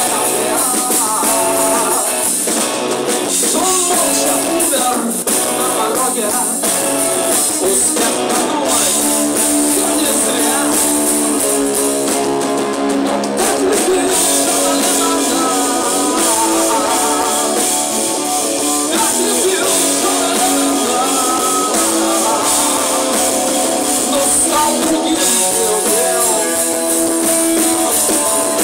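A rock band playing live: distorted electric guitars, bass and drums, with a male singer. The recording has little bass.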